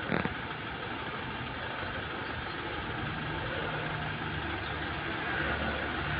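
A motor vehicle's engine idling steadily, its low hum growing stronger about halfway through, under a steady wash of outdoor noise. A short sharp click right at the start.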